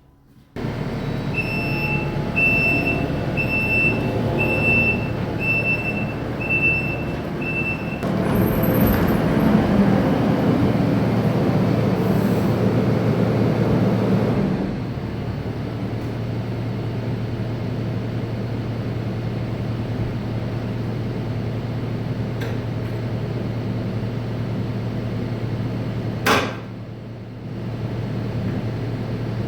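Kubota SVL97 compact track loader's diesel engine running, with a series of high warning beeps about one a second for the first several seconds. It runs louder for several seconds, then settles to a steady idle, with one short sharp noise a little before the end.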